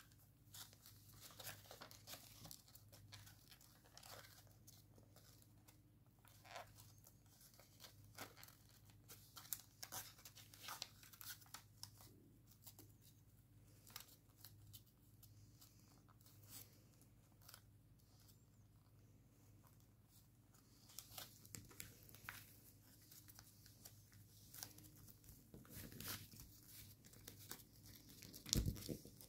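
Faint crinkling and rustling of shiny gold origami paper being folded and creased by hand, in scattered short crackles that grow a little busier near the end.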